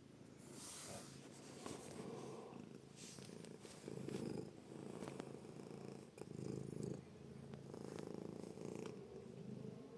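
Kitten purring steadily, the purr swelling and fading with its breaths about every second or so, with a few faint rustles.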